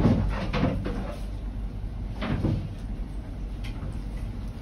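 A plastic spoon scraping and knocking in a plastic cup of jigarthanda, a few times near the start and again a little over two seconds in, over a steady low hum.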